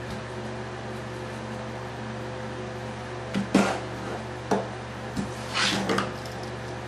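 Steady background hum with a few fixed tones, broken from about three to six seconds in by two short rustling bursts and a couple of sharp clicks from small parts being handled on the workbench.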